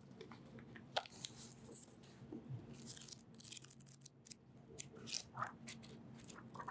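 Paper rustling as the pages of a paperback book are handled and leafed through, in a string of soft, crisp brushes and ticks.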